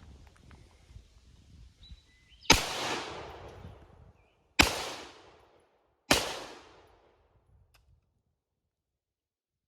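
AR-15 rifle firing three single shots, the second about two seconds after the first and the third about a second and a half later, each trailing off in a rolling echo.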